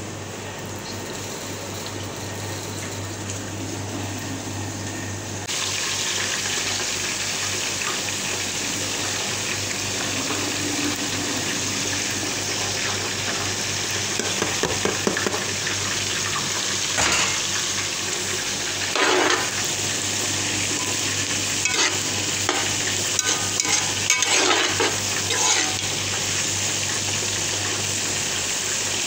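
Hot oil sizzling in a non-stick frying pan. About five and a half seconds in the sizzle suddenly gets louder as vegetables go into the pan. Later a metal spoon clinks and scrapes against the pan while sliced onions and bell peppers are stirred, over a steady low hum.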